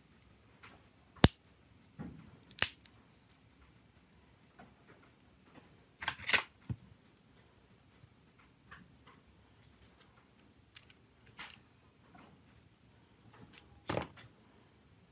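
Sharp clicks and taps of small plastic and metal mobile-phone parts being handled and fitted into the phone's frame, some made with steel tweezers. There are about five separate clicks spaced a few seconds apart, the loudest in the first few seconds.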